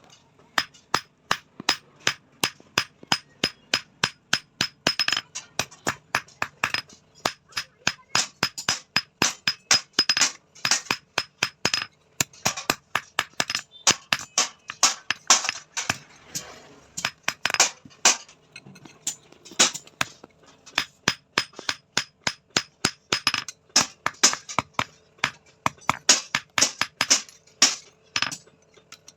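Hand hammer striking steel on an anvil in a fast, steady run of blows, about three or four a second, with a few short pauses. The metal rings between strikes.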